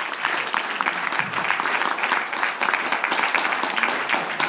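Congregation applauding with steady, dense clapping.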